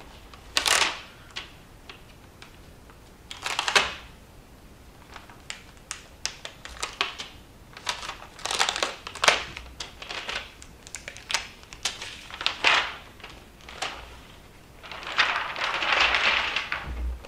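Thin plastic wrapping crinkling and crackling as it is peeled off a laptop, in a string of short irregular crackles with a longer rustle near the end. A low thump comes just before the end.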